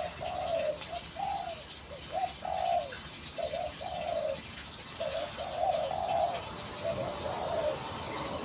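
A dove cooing over and over in short, low-pitched phrases with brief gaps between them.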